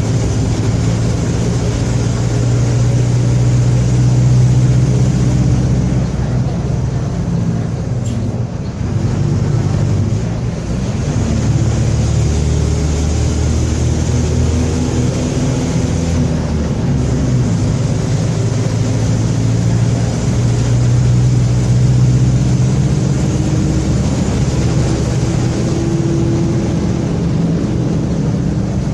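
Mercedes-Benz OF-1721 BlueTec 5 bus driving along, its engine running steadily under way with the differential growling: a worn or noisy differential. The engine note drops briefly about eight seconds in, then climbs again.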